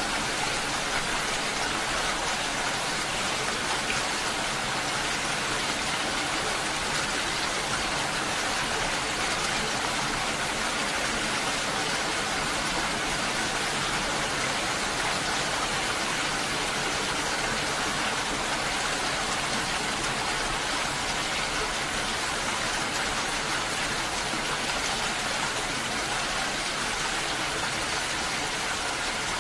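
Steady rain falling, an even hiss with no breaks or changes.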